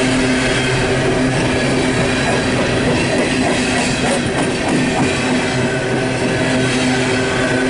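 An empty CSX coal train's open-top coal cars roll steadily past, with continuous wheel and rail noise and a steady low hum underneath.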